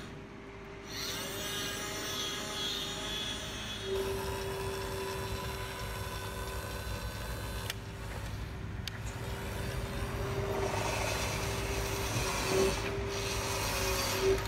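Small electric motor of a toy RC crane running with a steady whine, along with mechanical rubbing and rattling, and a few knocks near the end.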